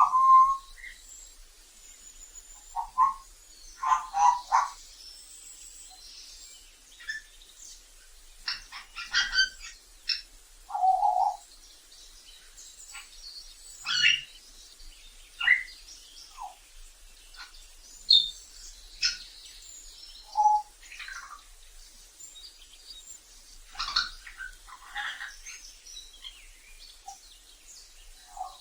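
African grey parrot calling: a string of short whistles, squawks and clicks, one every second or two.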